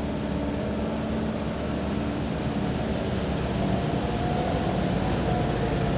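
Engine of a small vintage pickup-based fire truck running steadily as it drives slowly past, its low engine note getting a little louder about halfway through as it comes closest.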